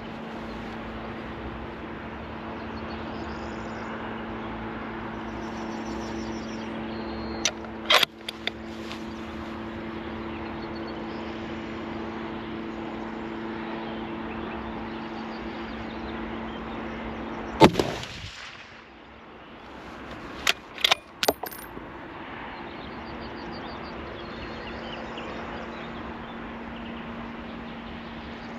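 A single shot from a Tikka T3X TAC A1 .308 bolt-action rifle about 18 seconds in, the loudest thing heard, followed a few seconds later by three sharp metallic clicks as the bolt is worked. A couple of similar clicks come about 8 seconds in, over a steady hiss and low hum.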